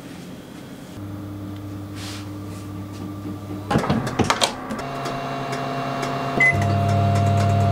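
Combination microwave oven: a few sharp clacks as the tray goes in and the door shuts, then a short beep from the control panel. The steady electric hum grows louder after the beep as the oven starts baking.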